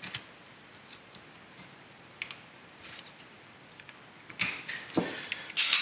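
Handling noise on a padded bench: a few faint clicks, then a cluster of sharper clicks and knocks in the last second and a half as a plastic tool and a just-reassembled pistol are picked up and put down.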